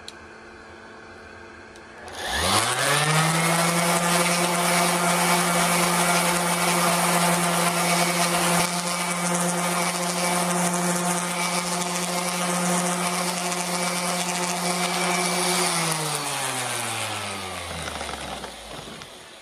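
Electric sander switched on about two seconds in, running at a steady pitch while sanding acrylic paint fill off a carved wooden piece back to bare wood, then switched off and winding down near the end.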